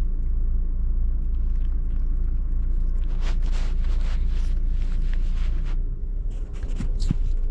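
Toy poodle–bichon frise puppy lapping water from a plastic cup: a quick run of wet laps, about three to four a second, starting a few seconds in, over the car's steady low rumble.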